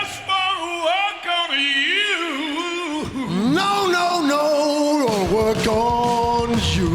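Male voice singing a long, wavering wordless vocal run with the band dropped out, nearly unaccompanied. The band's bass comes back in about five seconds in.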